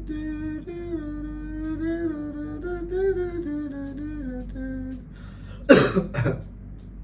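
A person humming a slow melody in long held notes, then two loud, short coughs about half a second apart near the end.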